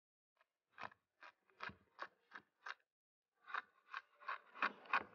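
Knife chopping beans, about three short strokes a second in two runs with a brief pause between; the second run is louder.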